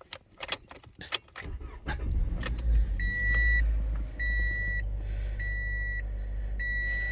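A few clicks and key rattles, then a 2015 Toyota Corolla's four-cylinder engine starts about two seconds in and settles into a steady idle. Over the idle the seat-belt reminder chime beeps four times, each beep about half a second long, a little over a second apart.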